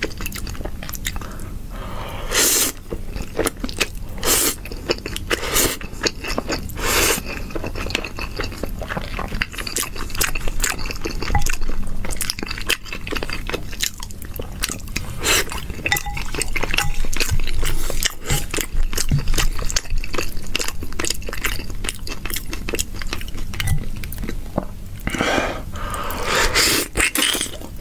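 Close-miked eating of saucy noodles: loud slurps and wet chewing with many small mouth clicks and smacks. The slurps come a few times early on and twice more near the end.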